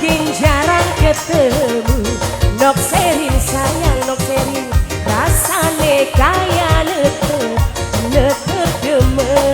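Tarling dangdut music: a wavering, ornamented melody line over a busy, steady drum beat.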